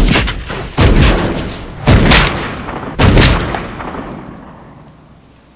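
Movie gunshot sound effect: four heavy shots, each followed by a long rolling echo. The shots come at uneven gaps of about a second, and the last echo dies away over about two seconds.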